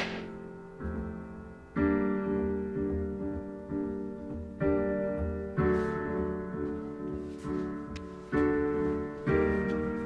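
Background music: slow piano chords, a new chord struck about once a second and left to ring out.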